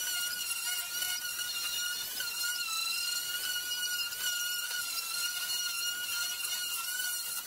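Random orbital sander running steadily as it sands a wooden cabinet door, giving a high motor whine whose pitch dips slightly a couple of seconds in.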